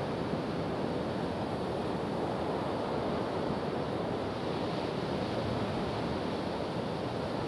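Rough surf breaking and washing up a sandy beach: a steady, unbroken rush of waves, with wind on the microphone.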